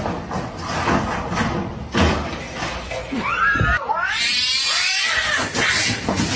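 A cat caterwauling: a drawn-out, wavering yowl that starts about three seconds in, after a noisy stretch.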